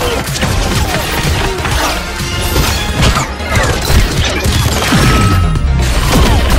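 Promo soundtrack: loud music layered with crashing impact sound effects and sweeping effects that slide up and down in pitch.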